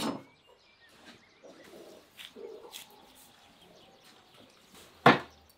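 A few faint clicks, then one loud, sharp knock about five seconds in, with faint bird calls in the background.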